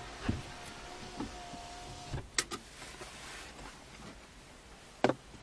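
Raindrops tapping irregularly on the windshield and roof of a stationary car, heard from inside the cabin, with sharper knocks about two and a half seconds in and near the end. A faint steady tone runs through the first two seconds.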